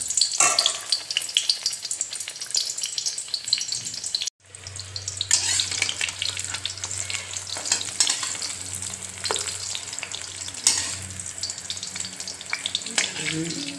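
Brinjal (eggplant) slices sizzling and crackling as they shallow-fry in hot oil in an iron kadai, with a metal slotted spatula scraping and turning them. The sound drops out for a moment about four seconds in.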